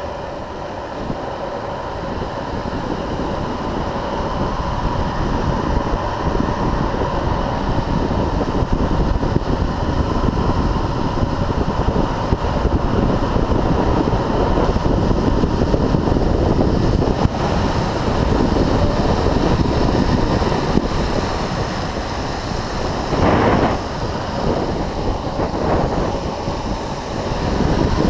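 Wind rushing over the camera's microphone with the rumble of urethane longboard wheels rolling on asphalt at downhill speed, growing louder over the first several seconds as speed builds. A short louder burst comes late on.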